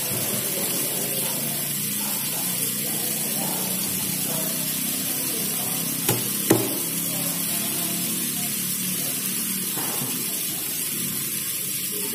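A large knife filleting tuna on a wooden chopping block, with two sharp knocks of the blade on the block about six seconds in, over a steady watery hiss.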